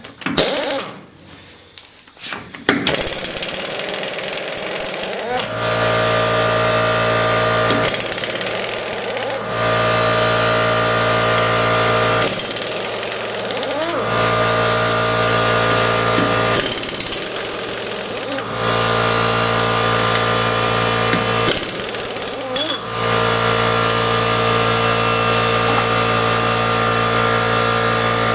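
Power impact wrench hammering on the Case 1840 skid steer's wheel nuts in about five bursts, each a second and a half to two and a half seconds long. A steady machine hum runs between the bursts.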